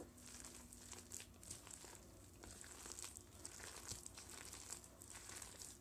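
Faint, irregular squishing and crackling of stale bread soaked in a milk batter, kneaded by hand in a plastic bowl.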